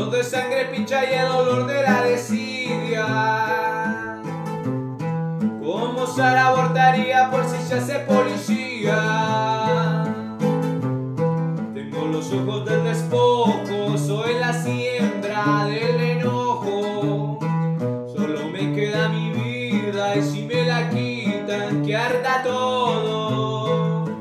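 A man singing to his own bandola: the bandola keeps a steady plucked pattern while the voice comes in four sung phrases with short breaks between them.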